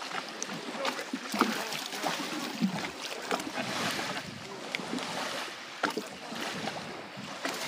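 Water splashing and sloshing, with scattered sharp knocks and faint voices in the background.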